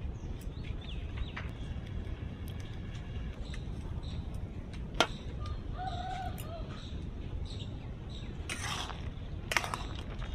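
Low steady rumble under a lidded kadai of boiling water on a wood-fired clay stove, with faint bird chirps. A single sharp clink about five seconds in as the metal lid is lifted, and a brief scrape near the end.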